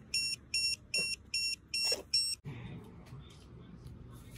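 Retekess restaurant guest pager beeping: about six quick high-pitched beeps, evenly spaced, that stop about two and a half seconds in, the signal that the order is ready for pickup.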